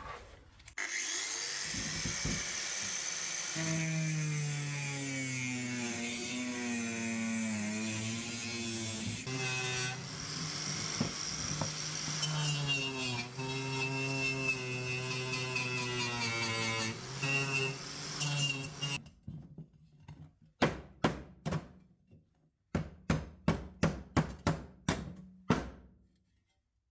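Angle grinder working on a steel panel, its motor pitch sagging and recovering as it is pressed into the metal, then a run of sharp knocks near the end.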